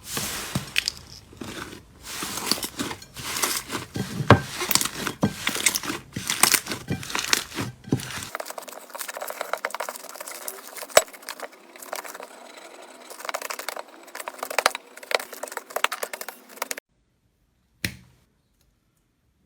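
Slime being squeezed, stretched and pressed by hand, a dense stream of crackling, sticky pops and crinkly clicks. About eight seconds in the sound changes to a thinner, lighter crackle, and near the end it stops suddenly, followed by a single short pop.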